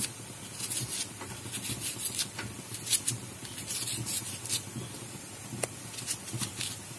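Kitchen knife slicing through a raw onion held in the hand: a quick, irregular series of crisp little cuts, several a second.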